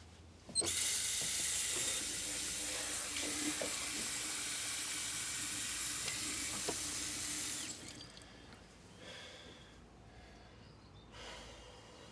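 Water running hard from a bathroom tap or shower, starting suddenly about half a second in and shutting off after about seven seconds.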